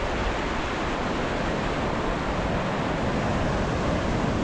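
Ocean surf breaking and washing through the shallows as a steady rush, with a low wind rumble on the microphone.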